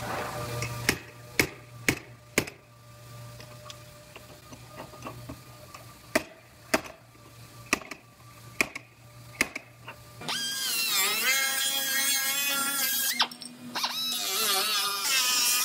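Slide hammer clamped to the lip of a steel quarter panel's wheel arch, pulling out a pushed-in dent with sharp metal knocks: four about half a second apart, then a second run of about six. A low steady hum runs under the knocks. From about ten seconds in, background music takes over.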